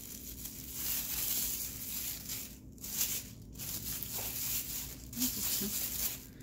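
Thin plastic grocery-bag strip rustling and crinkling as it is pulled through the hands and wound into a ball, with a few brief pauses in the middle.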